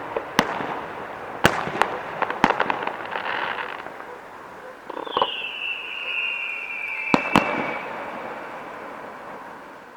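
Fireworks salute going off: scattered sharp bangs and a quick burst of crackling pops, with a falling whistle lasting a couple of seconds in the middle. The sound fades away near the end.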